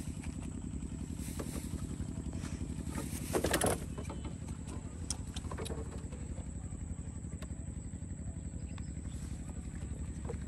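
Motor scooter engine idling steadily, with a short louder noise about three and a half seconds in.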